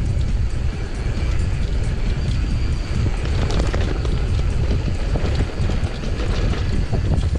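Mountain bike rolling fast down a dirt trail: heavy wind rumble on the microphone with tyre crunch and the rattle and knock of the bike over bumps.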